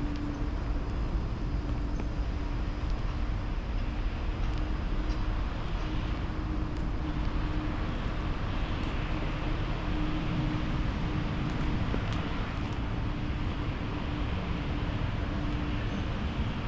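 Steady outdoor street ambience: a low rumble of road traffic with a constant steady hum underneath and a few faint light ticks.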